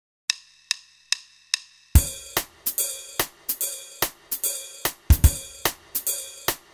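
Opening theme music: four evenly spaced ticks as a count-in, then about two seconds in a drum kit comes in with a steady beat of kick drum, snare and cymbal hits.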